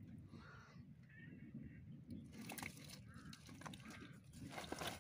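Crows cawing in short calls, twice in the first two seconds and twice more past the middle. Faint clicks and rustles come from fish being handled in a woven sack.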